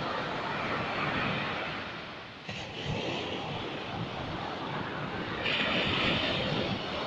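Sea waves breaking and washing up on a beach: a steady rushing that drops briefly about two and a half seconds in and swells louder again about five and a half seconds in.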